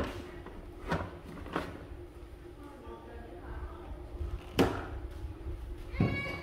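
A handful of sharp knocks and clunks of hard household appliances being picked up and set down on a table, about five in all, over faint voices in the background.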